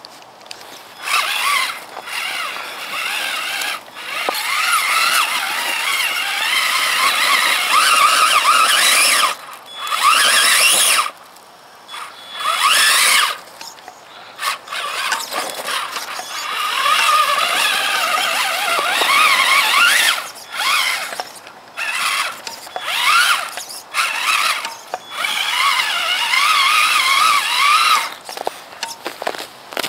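Traxxas Summit radio-controlled truck's electric motor and gears whining in bursts as it crawls over dirt mounds. The whine rises and falls in pitch with the throttle and stops briefly several times.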